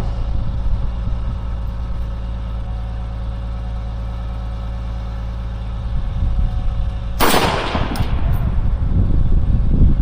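A single rifle shot about seven seconds in, sharp and loud with a short echoing tail, followed by two faint clicks. A steady low rumble runs underneath.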